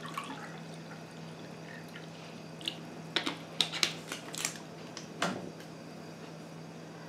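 Water poured from a glass into a small steel saucepan, with a scatter of short clinks and taps from the glass and bottle being handled in the middle stretch.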